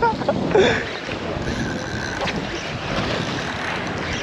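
Steady wind buffeting the microphone over surf washing against jetty rocks, with a brief voice in the first second.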